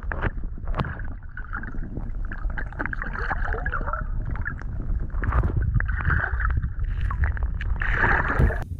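Water sloshing and splashing in irregular bursts over a steady low rumble.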